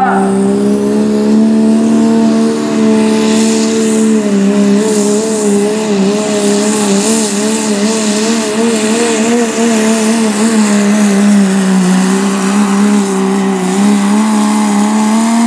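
Pro Stock Diesel 4WD pickup's diesel engine at full throttle, pulling a weight sled down the track, holding one steady high pitch that wavers from about four seconds in and dips briefly near twelve seconds. It cuts off suddenly at the end as the pull finishes.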